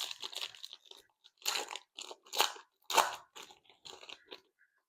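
Trading cards being flipped and slid against one another by hand, a run of short dry scrapes and rustles, five or six in a row.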